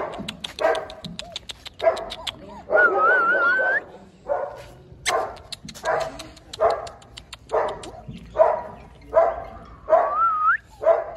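German shepherd puppies barking over and over in short yaps, about one every second, with a high wavering whine twice, the second one rising at its end.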